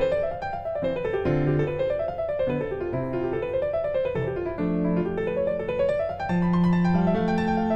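Background piano music: flowing runs of notes rising and falling over held bass notes.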